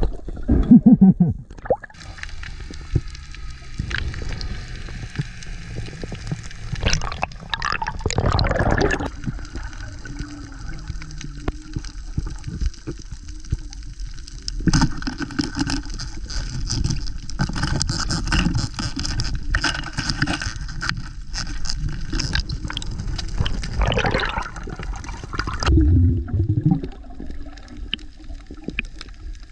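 Water gurgling and sloshing close to the microphone, swelling in a few surges, with faint steady high tones behind it.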